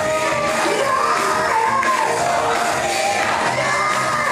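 Live gospel worship band playing, with drum kit, keyboard and bass guitar, while several singers sing over it through microphones.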